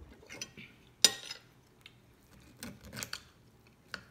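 Fork and knife clinking and scraping against a dinner plate while cutting food, with one sharp clink about a second in and several more near the end.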